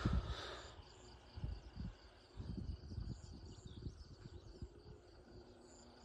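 Insects trilling steadily, with short repeated high chirps, under irregular low rumbles on the microphone.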